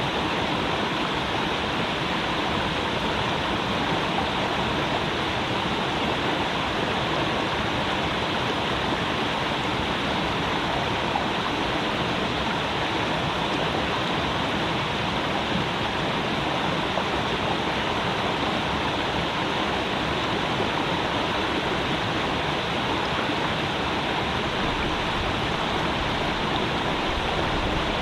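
Creek water flowing and babbling in a steady rush.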